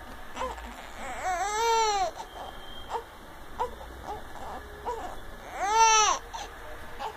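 Infant crying: two long wails, each rising and then falling in pitch, about a second in and again near the end, with short whimpers between.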